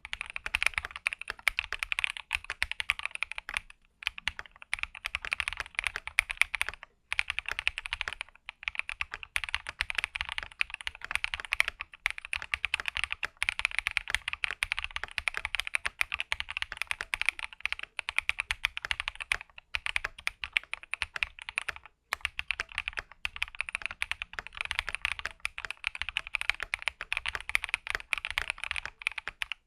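Typing on a Keychron Q6 full-size aluminium mechanical keyboard fitted with KTT Strawberry linear switches: a fast, continuous run of keystroke clacks, broken by a few short pauses.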